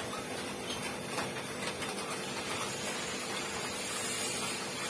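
Steady background hiss with a faint, even hum and a few light ticks.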